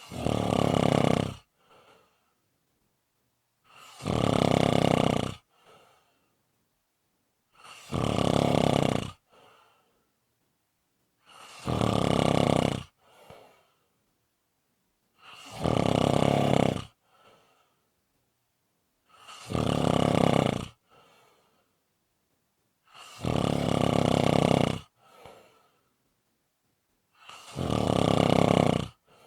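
A person snoring: eight long snores about four seconds apart, each followed by a short, faint breath.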